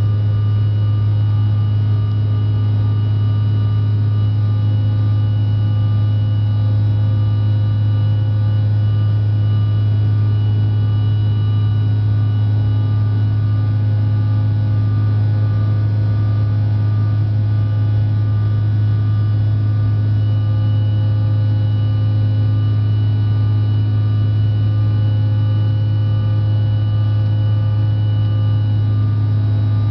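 Cabin noise of a Bombardier CRJ900 in its climb after takeoff: the steady drone of the jet's turbofan engines, with a strong deep hum and several thin steady tones above it.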